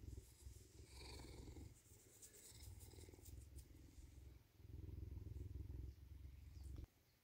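Bobcat purring close up: a low, rapid rumble in several phrases, breath by breath, that stops abruptly near the end, with a light rustle of fur brushing close by in the middle.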